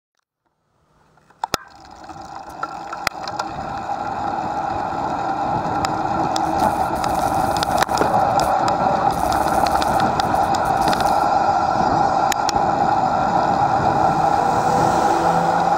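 A bicycle being ridden on a paved road, heard through a camera mounted on the bike: steady rolling road and wind noise with scattered sharp clicks and knocks from the mount and frame over bumps. It fades in over the first couple of seconds.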